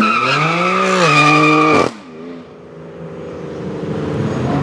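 BMW M4's twin-turbo straight-six revving high, its note climbing and then holding, with tyres squealing in a burnout; the sound cuts off abruptly about two seconds in. After that the engine runs more quietly at lower, steady revs, gradually growing louder.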